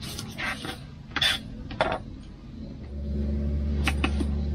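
Knife cutting white onions on a plastic cutting board, a few sharp knocks and clicks in the first two seconds as it strikes the board and pieces are handled. About three seconds in, a steady low hum starts and keeps going.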